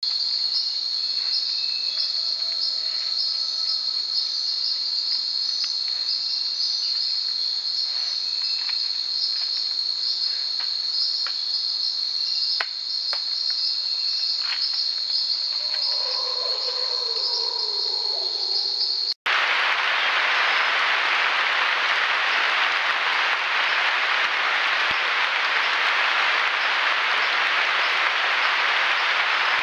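Night-time rainforest insect chorus of crickets or katydids: a loud, steady, high-pitched buzzing with a fast pulsing texture, and a lower call sliding down in pitch near the end of it. After an abrupt cut a steady, even hiss takes over.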